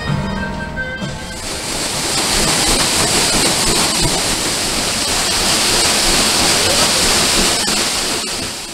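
Plucked guitar music briefly at the start, then the red stern paddlewheel of the Creole Queen riverboat turning and churning the river, a loud, steady rush of splashing water.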